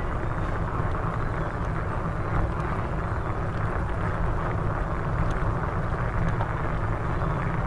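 Steady rumble of a bicycle being ridden: tyres rolling on the street and air rushing past the microphone, with a few faint ticks.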